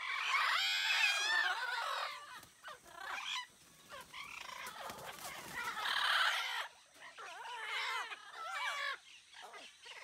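Green parrots squawking in an aviary, in several bouts of calls. The calls are loudest in the first two seconds and again about six seconds in.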